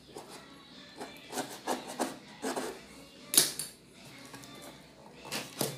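Cardboard packaging being handled and pulled open by hand: a run of rustles and scrapes, with a sharp, loud tear about three and a half seconds in and another just before the end.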